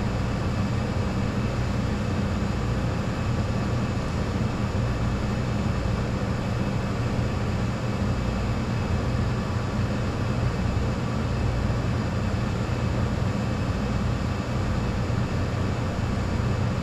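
Steady low hum and fan whir of back-room restaurant kitchen machinery, unchanging throughout.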